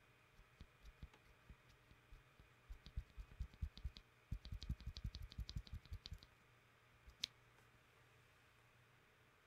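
A lubed and filmed Gateron Black Ink linear switch pressed and released by hand, close to the microphone: soft clacks, a few slow presses at first, then quick runs of about four to five presses a second, ending with one sharper click about seven seconds in.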